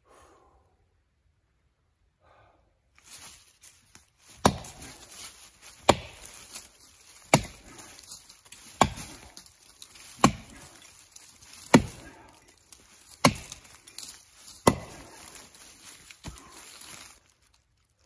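Felling axe chopping into the trunk of a dead, partly rotten oak: nine sharp strikes, about a second and a half apart, in an even rhythm.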